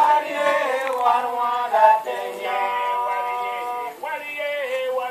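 Singing with music: a voice holding long, drawn-out notes that bend in pitch at their ends, with a short dip about four seconds in.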